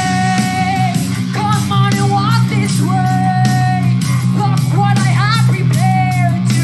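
Live hard rock performance: a woman sings long held notes over distorted electric guitar, bass and drums.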